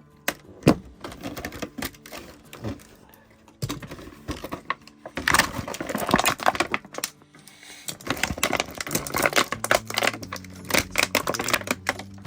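Toy packaging handled close to the microphone: an irregular run of plastic clicks and taps, with two stretches of dense crinkling and rattling as accessories are worked loose from their plastic tray. A sharp click stands out about a second in.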